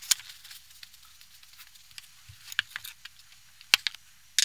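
A few scattered light clicks and taps, as of someone moving about and handling things at a table, with a sharper click about two-thirds of the way through.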